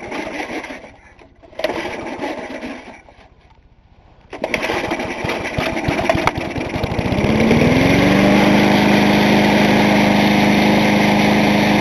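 Single-cylinder four-stroke Briggs & Stratton 3.5 hp lawnmower engine being pull-started: two pulls on the recoil starter, then it catches about four seconds in. It fires unevenly at low speed, picks up speed around seven seconds in and settles into steady running. The engine has sat unused for years and is unusually hard to start.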